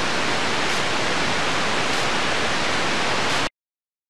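Steady hiss of static from a blank, unrecorded stretch of VHS tape, cutting off abruptly to dead silence about three and a half seconds in.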